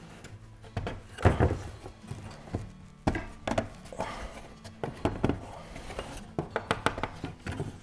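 Wooden knocks and clacks of CNC-cut plywood parts being slotted together by hand into half-housing joints and tapped down on a bench, in irregular strikes, the loudest about a second in.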